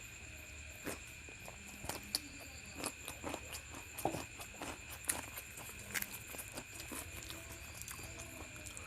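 Close-up mouth sounds of someone eating luchi and egg masala: irregular wet chewing and lip smacks, a scatter of small clicks, over a faint steady high whine.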